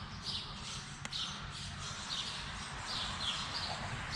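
A small bird chirping repeatedly, short high chirps about twice a second, over steady outdoor background noise, with one faint click about a second in.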